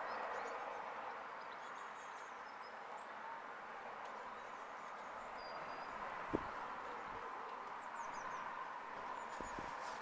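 Small garden birds giving short, faint high chirps and calls here and there over a steady background hum. A brief low thump about six seconds in, and a few more near the end.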